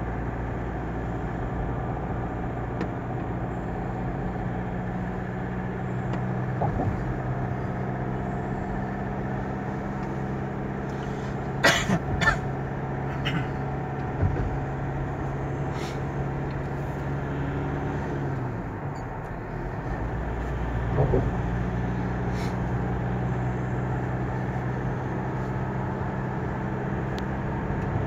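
Car cabin noise while driving at speed: a steady engine drone over road and tyre rumble. The drone dips briefly a little past halfway, and a few sharp knocks sound near the middle.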